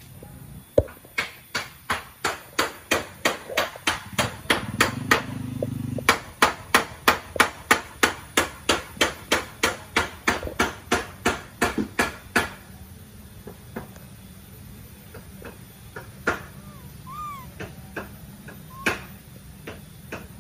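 A fast, regular series of sharp hammer-like blows, about three a second, that stops about twelve seconds in, followed by a few scattered knocks.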